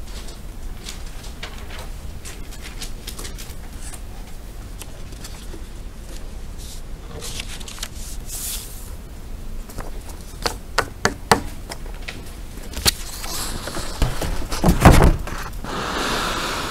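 Sheet of paper being handled and slid across a desk, with scattered light taps and clicks, then louder rustling and a heavy thump about fourteen seconds in as the page is shifted.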